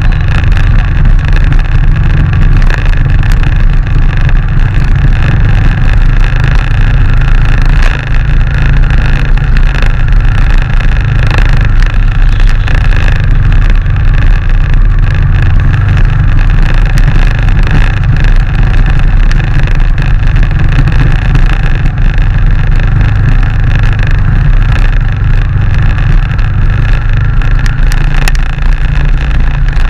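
Off-road motorcycle engine running steadily as the bike is ridden along a rough gravel track, with a constant low rumble.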